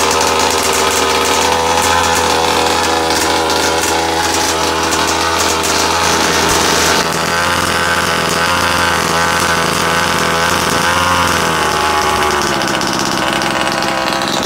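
Rovan 30.5 cc two-stroke engine of a Baja 5B running steadily during the break-in run of a new engine. The sound changes about halfway through, and the engine slows to a lower note near the end.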